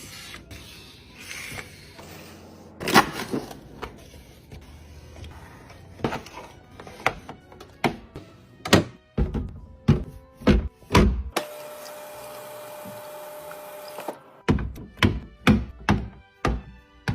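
A series of sharp knocks and thunks of containers and packaging being handled and set down, coming thicker and faster in the second half. A steady hum with a few even tones runs for about three seconds past the middle.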